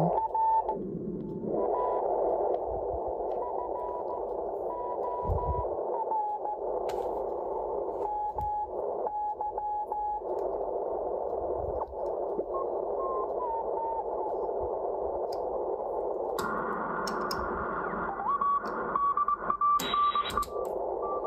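Collins 75A-4 receiver's audio: band noise through a narrow filter, with steady whistle-like tones near 1 kHz coming and going. Near the end the hiss brightens and widens in two steps as the selectivity switch is turned to a wider filter.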